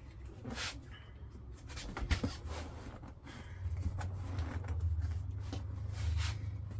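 Upholstery cover scraping and rubbing as it is stretched and smoothed by hand over a golf cart seat cushion, in several short rubs and creaks. A low steady rumble comes in about halfway through.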